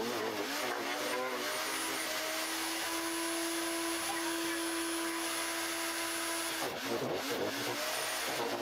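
Ryobi RSH2545B electric garden shredder running, its motor pitch wavering as it chews through a bigger branch. For a few seconds in the middle it runs at a steady pitch, then wavers again near the end as more wood goes in.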